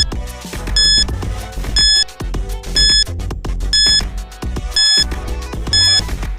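Countdown timer beeping about once a second, short high electronic beeps over background music.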